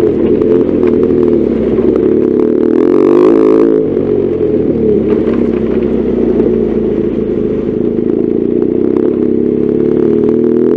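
BMW R1200GS Adventure's flat-twin engine running under load, its pitch rising and falling with the throttle. It climbs to higher revs about two and a half seconds in and drops off sharply about a second later, with light rattling throughout.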